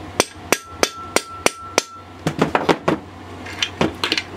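Rubber mallet tapping a Husqvarna 365 Special chainsaw's crankcase to set the crankshaft and seat its bearings, because the crank feels a little tight. About six evenly spaced taps, roughly three a second, each followed by a short metallic ring, then a few quicker bunches of knocks.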